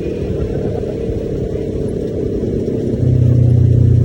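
Side-by-side UTV engine running underway with a rumbling drone, growing louder with a strong steady low hum about three seconds in.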